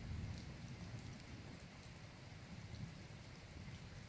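Faint nighttime storm ambience: a steady low rumble, with insects chirping in an even pulse about three to four times a second and scattered light drips.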